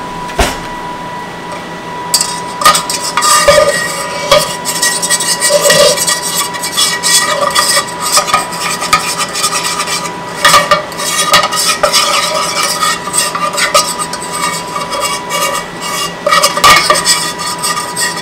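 A utensil stirring and scraping against a pan, with frequent clinks, as flour is worked into warm olive oil to make a roux. The stirring starts about two and a half seconds in and keeps on in irregular strokes.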